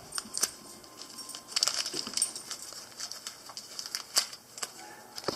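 Plastic wrapper crinkling and rustling as it is handled, with scattered light clicks.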